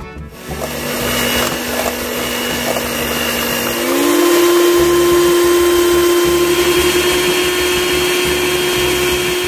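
Electrolux electric hand mixer beating egg whites with icing sugar in a stainless steel bowl, its motor running with a steady whine. About four seconds in the pitch rises as the mixer speeds up, then holds steady at the higher speed.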